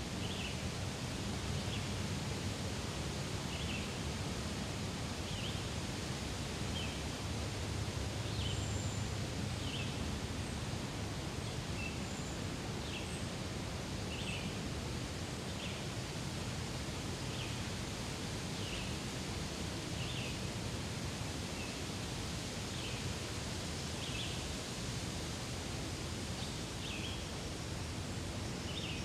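Daytime forest ambience: a steady rustling of leaves in the wind, over which a bird repeats a short call about once a second, with a few faint higher chirps now and then.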